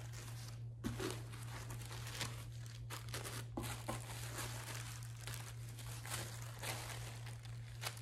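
Tissue paper rustling and crinkling in irregular handfuls as it is lifted and unfolded from inside a shoe box.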